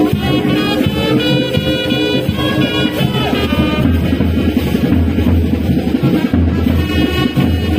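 Music playing.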